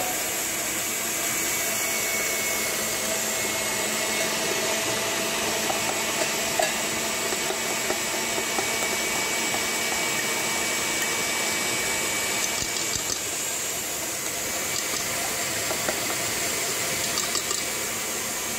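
Electric stand mixer running steadily at high speed, its wire whisk beating egg yolks while hot soft-ball sugar syrup is poured in.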